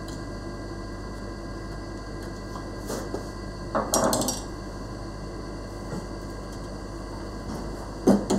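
Wooden mallet knocking a dovetail joint together, two sharp knocks near the end. Earlier, about four seconds in, a brief scrape of wood, over a faint steady room hum.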